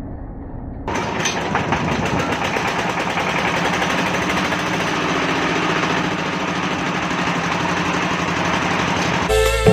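Small hand-crank-start diesel engine running with a rapid, even knock. Near the end, music comes in over it.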